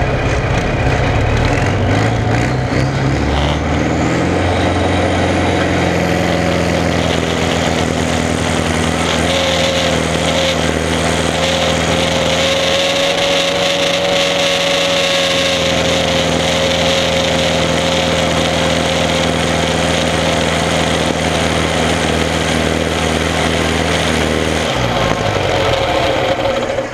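Belarus 940 tractor's diesel engine at full throttle under heavy load on a tractor-pulling run, heard from the driver's seat. The engine note climbs over the first few seconds, then runs loud and steady with a high whine over it through the middle, and the engine note drops off about 25 seconds in as the pull ends.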